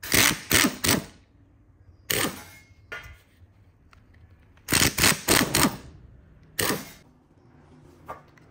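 Electric screwdriver whirring in short bursts while backing out the screws of a cordless drill's plastic housing: three quick bursts at first, then one, then four in a row, then one more.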